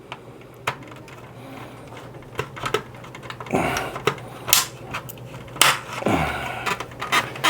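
Plastic trim tools prying at the old hard plastic shell of a vintage toy jet: scattered sharp clicks and taps, with two longer scraping rasps about three and a half and six seconds in.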